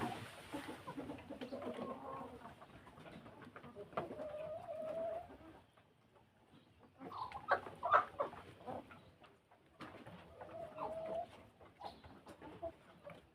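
Kienyeji chickens clucking and calling, with a couple of drawn-out calls and a brief flurry of clucks partway through.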